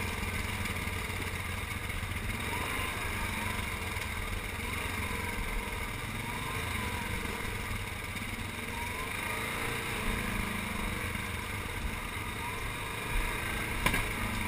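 Yamaha Grizzly 700 ATV's single-cylinder engine running at low speed while crawling over rocks, its pitch rising and falling as the throttle is thumbed on and off. A sharp knock near the end.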